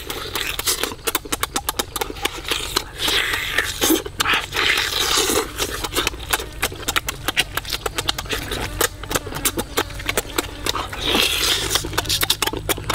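A person chewing and lip-smacking while eating roast chicken with bare hands: a fast, uneven run of loud mouth clicks and smacks.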